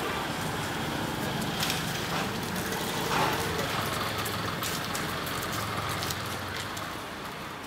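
Outdoor ambience with steady traffic noise, a faint low hum and a few soft knocks. It grows quieter near the end.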